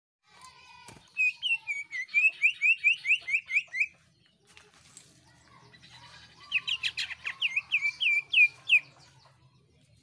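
Caged greater green leafbird (cucak ijo) singing: two loud volleys of quick, repeated shrill whistled notes, about four to five a second, each lasting some two and a half seconds with a pause of a few seconds between.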